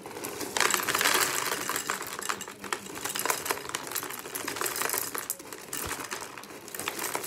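Dry cereal pouring into a bowl: a continuous clatter of small hard pieces.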